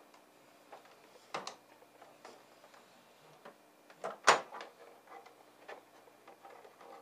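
Irregular clicks and knocks of hands handling the CISS ink-tube ribbon and plastic parts inside an open inkjet printer, with one sharper knock a little after four seconds in.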